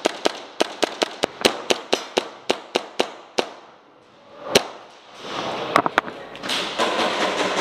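Airsoft guns firing: a rapid string of sharp cracks, about five a second for three seconds or so, then a single loud shot and two more close together a little later.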